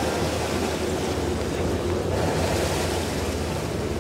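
Steady wind and water noise on open sea, with wind buffeting the microphone and a low, steady hum from a boat engine underneath.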